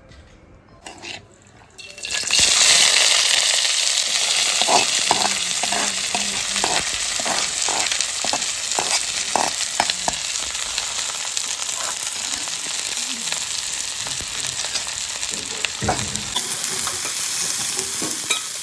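Food dropped into hot oil in a pan sets off a loud sudden sizzle about two seconds in, which then goes on steadily. A spoon clinks and scrapes against the pan in a run of quick strokes as the frying food is stirred.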